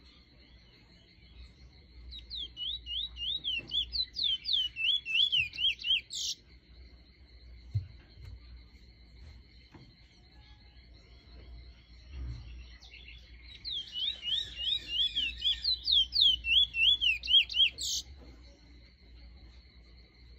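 Trinidad bullfinch singing: two bouts, each about four seconds long, of fast repeated slurred whistled notes, each bout ending in a short, sharp, higher note. It is a teacher bird, whose song is used to tutor young birds.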